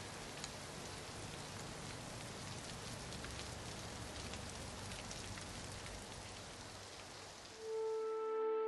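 Steady rain falling, a soft even hiss with scattered drop patter. Soft sustained music fades in near the end.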